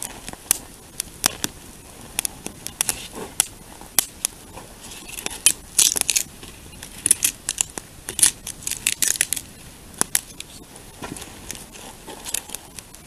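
Wood fire crackling and popping: irregular sharp snaps, thickest in a busy stretch about halfway through.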